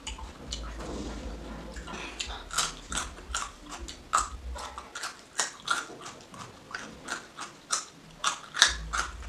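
Close-up crunching of a raw small carrot being bitten and chewed: a steady run of crisp crunches, about two to three a second, starting about two seconds in. The carrot is a little bit hard.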